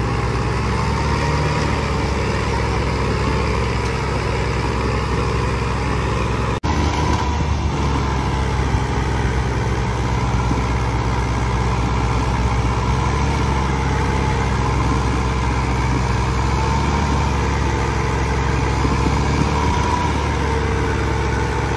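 The diesel engines of a Swaraj 855 and a New Holland 3630 tractor running hard under heavy load as the two tractors pull against each other in a tug-of-war. The engine sound holds steady, apart from one brief sharp dip about six and a half seconds in.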